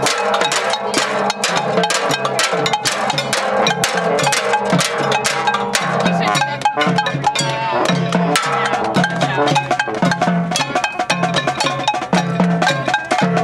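Hand percussion played at a noise protest: a dense run of sharp strikes on drums, with wood-block and cowbell-like clanks, over music with held notes.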